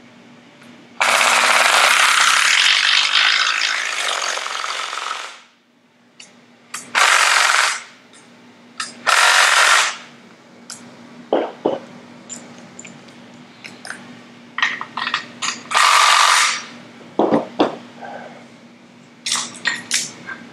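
Cordless impact driver running down the bolts of a Ford Model T engine's front plate: one long run of about four seconds, then three shorter runs of about a second each, with clicks and clinks of the socket and bolts between.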